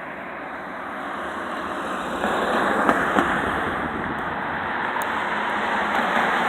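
Road traffic: a car's tyre and engine noise building steadily louder as it approaches.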